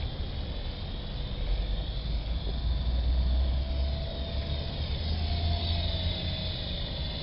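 Electric motors and rotors of a Big QS 8005 radio-controlled coaxial helicopter in flight: a high whine that rises and falls as the throttle changes. A low rumble underneath swells from about two and a half seconds in and eases near the end.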